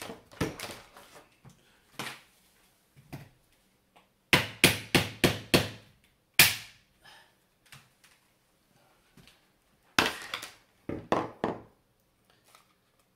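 Claw hammer blows on the glued-together casing of a CRT degaussing wand, knocking it apart. A few scattered strikes, then a quick run of about six blows, one more, and another short run near the end.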